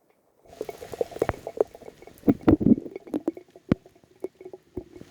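Raindrops striking a phone close to its microphone: irregular taps and pops with a few louder thumps among them. They begin about half a second in.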